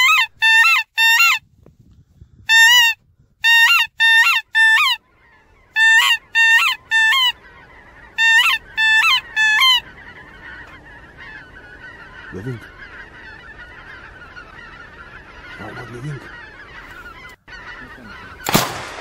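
Hand-blown goose call sounding short, sharply broken honks in runs of three or four, calling in geese unseen in fog. Near the end comes a single loud shot from a 20-gauge flintlock double shotgun.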